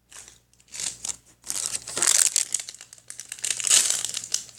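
Plastic toy packaging crinkling and rustling in irregular bursts as it is handled and opened, busier from about halfway in.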